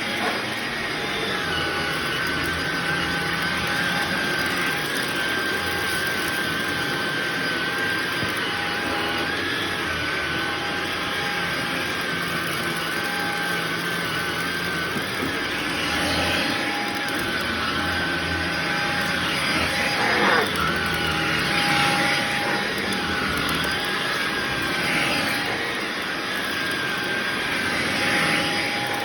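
Shark vacuum cleaner running on a shag rug: a steady motor whine whose pitch wavers several times and dips sharply once about two-thirds of the way through.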